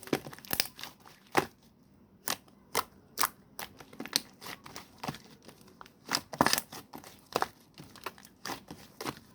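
Slime with clay being mixed in, kneaded and pressed by hand, giving a string of sharp crackling pops at irregular intervals.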